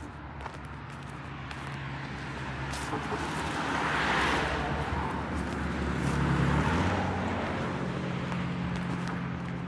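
A car driving past on the street, growing louder to a peak about four to six seconds in and then fading, with a steady low engine hum under the tyre noise. A few footsteps on pavement.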